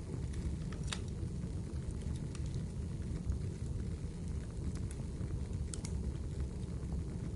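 Wood fire burning in a fireplace: a steady low rumble of the flames with scattered sharp crackles and pops, the clearest about a second in and near the middle.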